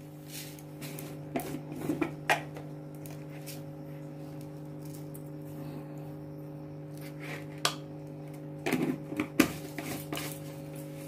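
A spoon clinking and scraping a few times against a stainless steel bowl of ground chana dal paste, in short scattered knocks over a steady low hum.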